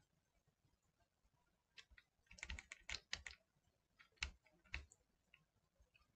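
Faint computer keyboard keystrokes: a quick run of several keys about two and a half seconds in, then two single taps about half a second apart.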